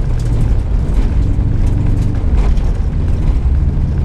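Car engine running under load with road noise as the car drives along a dirt track, heard from inside the cabin: a loud, steady low rumble.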